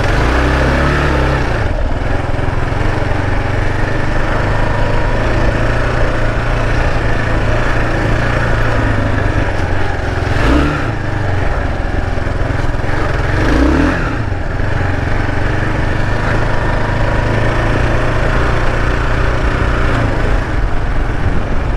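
Kawasaki KLR 650's single-cylinder four-stroke engine running steadily while the bike rides a dirt trail, with wind rush over it. Its pitch rises and falls briefly twice, about ten and fourteen seconds in, as the throttle is worked.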